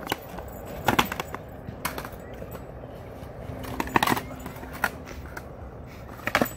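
Skateboard clacking on concrete during freestyle tricks: the tail and wheels strike the ground in sharp knocks, roughly one every second, the loudest about four seconds in and a quick cluster near the end.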